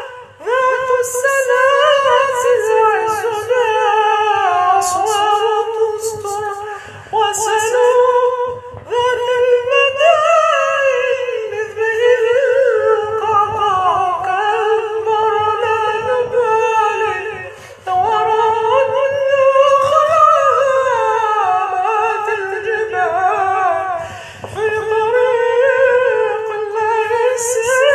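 A man's voice singing an Arabic nasheed in long, melodic phrases, with short pauses for breath between them.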